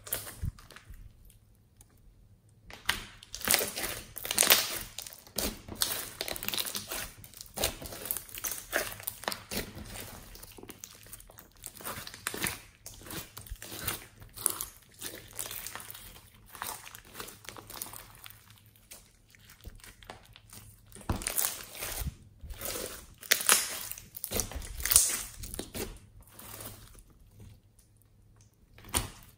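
Hands kneading, squeezing and stretching a large clear slime packed with floam foam beads: crackling, crunching squishes in irregular bursts, with a few short pauses.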